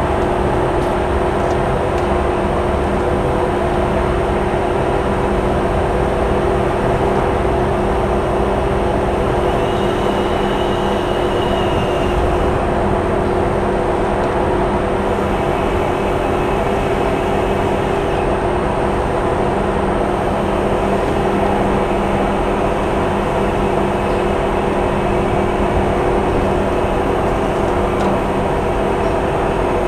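Steady machinery drone of a ship at sea, a constant hum with several fixed tones that does not change.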